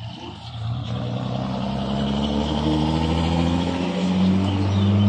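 A car engine running, its low pitch climbing slowly and the sound growing louder toward the end.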